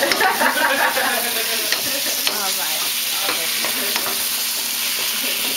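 Vegetables sizzling in a sauce in a stainless steel pan over high heat, with a wooden spoon stirring and scraping and occasional light knocks against the pan. The roux sauce is starting to thicken.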